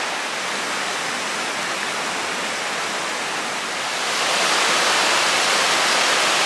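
Steady rush of a rocky upland river running over boulders, then, about four seconds in, the louder, brighter roar of a waterfall cascading down rock.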